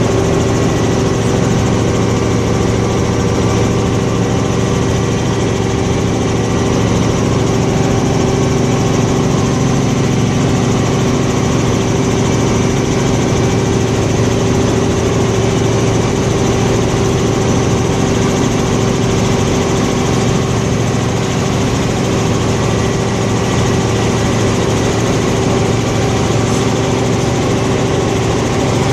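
Helicopter engine and rotor running steadily, a constant loud drone with a steady pitched hum that does not change.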